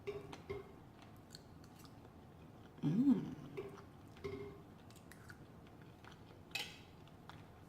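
A person chewing a mouthful of food close to the microphone, with small wet mouth clicks and smacks, and a short hummed vocal sound about three seconds in.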